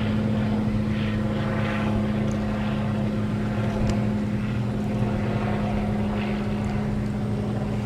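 Autonomous robotic lawnmower running steadily, a constant droning hum of its motors as it drives a straight course.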